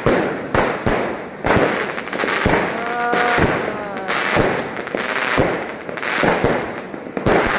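Aerial fireworks going off in quick succession: many sharp bangs of shells launching and bursting, over a continuous crackling hiss. A brief pitched tone sounds about three seconds in.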